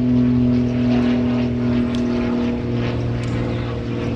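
Engine running steadily, a constant low pitched drone that eases off slightly a little past halfway.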